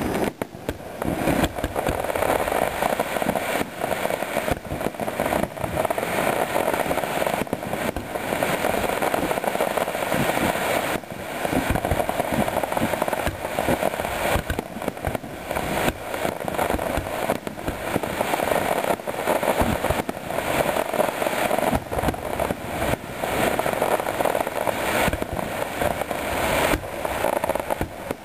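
A fireworks display: aerial shells bursting in an irregular series of sharp bangs, several every few seconds, over a continuous noisy wash between them.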